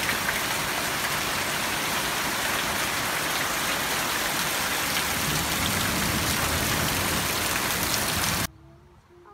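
Heavy rain pouring down, a steady loud hiss of downpour on the yard and roof, which cuts off suddenly near the end.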